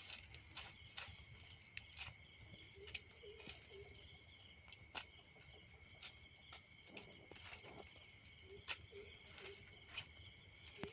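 Insects, likely crickets, trill steadily and faintly. Scattered sharp clicks or crackles come every second or so, and a few short low chirps sound around three and nine seconds in.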